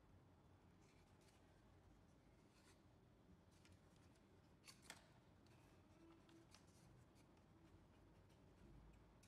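Near silence with faint clicks and rustles of hard plastic being handled: a solar security camera's swivel bracket and solar-panel mount being turned, with one sharper click about five seconds in.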